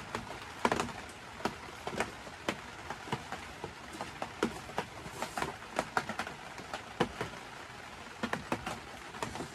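Scattered light clicks and taps, one or two a second, from hands handling spark plugs and their fittings, over a faint steady hiss.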